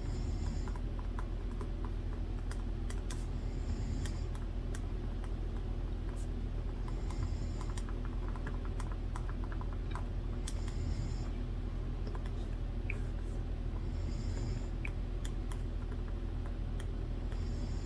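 Typing on a computer keyboard: irregular runs of light key clicks. Underneath, a sleeper's snoring breaths recur about every three and a half seconds over a steady low hum.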